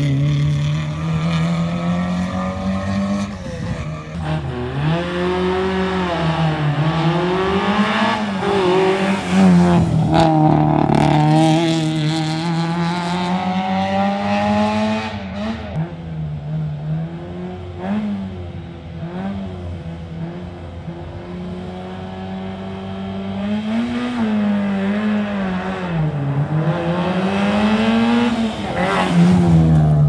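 Historic rally car engines revving hard, their pitch rising and falling again and again with gear changes and lifts of the throttle. A car coming into the hairpin near the end is the loudest.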